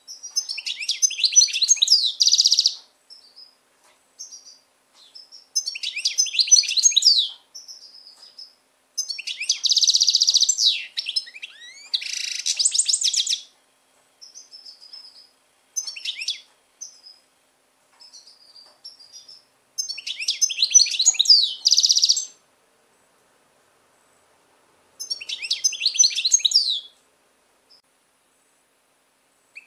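European goldfinch singing: rapid, high twittering song phrases of one to two seconds each, about six of them, separated by pauses with short single chirps in between.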